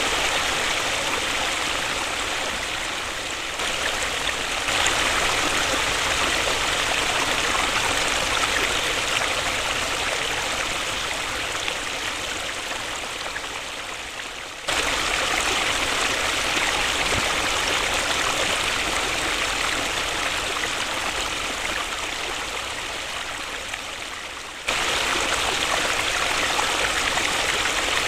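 Waterfall: a steady rush of falling water. The level sags slowly and twice jumps back up suddenly, about halfway and near the end.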